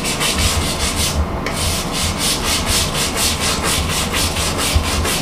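A hand scrubbing brush scrubbing hard-water deposits on a tiled bathroom floor. The brush goes back and forth in quick, even strokes, several a second, with a brief pause about a second in.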